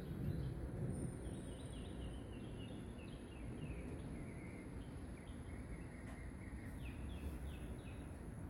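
Outdoor background noise, a steady low rumble, with a small bird chirping in quick runs of short falling chirps.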